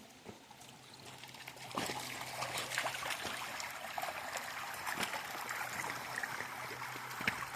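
Shallow creek water trickling and flowing over its bed, growing louder about two seconds in, with scattered short clicks.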